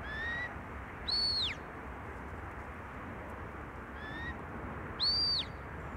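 Shepherd's whistle commands to a working border collie: a short rising note, then a higher note that rises and falls. The same two-note command is given twice, about four seconds apart.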